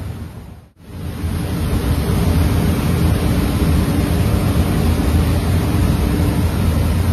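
Loud, steady rushing noise with a deep rumble, from shop machinery around a fiber laser cutter; it drops out for a moment about a second in, then resumes.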